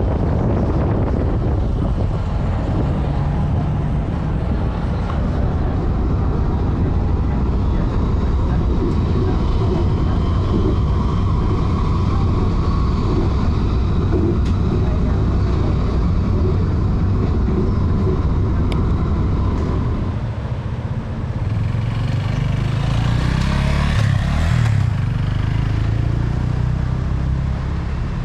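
City street traffic: a steady, dense rumble of passing cars and motorcycles, with one louder vehicle going by close about three-quarters of the way through.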